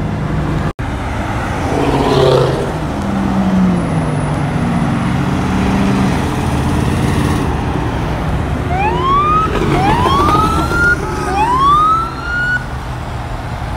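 Car engines running as cars drive out of a car show. Near the end a high whine rises three times in a row.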